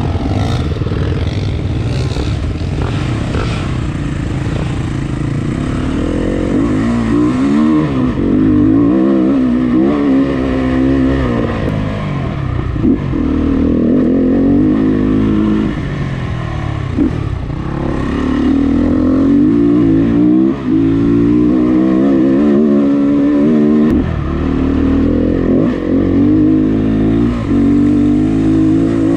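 Dirt bike engine, heard from on board, running hard on a dirt trail. Its revs climb and fall back again and again as the throttle opens and closes, with a few brief drops in between.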